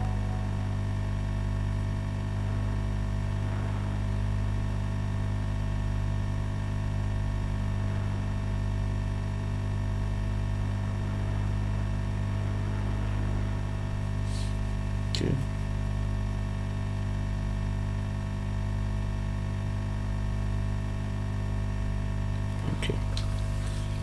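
Steady electrical mains hum, a strong low tone with many higher overtones, holding level throughout. A small click about fifteen seconds in, and a few light tool clicks near the end.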